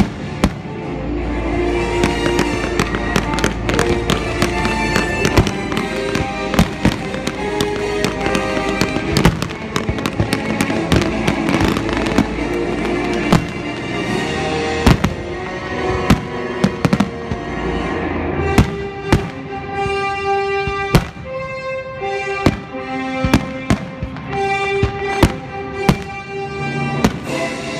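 Aerial firework shells bursting in quick, irregular succession, dozens of sharp reports, over music playing throughout. The bursts come thickest and sharpest in the second half.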